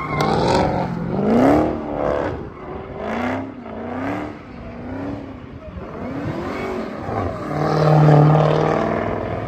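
Chrysler 300's engine revving hard as the car spins donuts, its pitch swinging up and down several times. Near the end it is held at high revs for about a second as the rear tyres spin and smoke.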